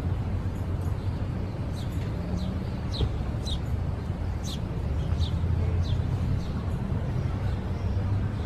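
A steady low engine-like hum, with a bird giving about ten short, falling high chirps, most of them in the middle of the stretch.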